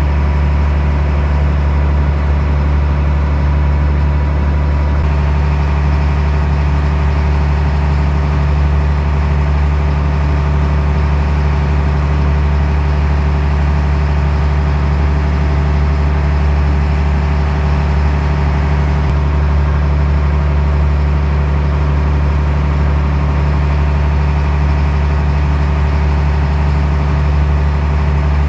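A fishing boat's engine running steadily under way: a loud, constant low drone, its tone shifting slightly about five seconds in, with the wake churning along the hull.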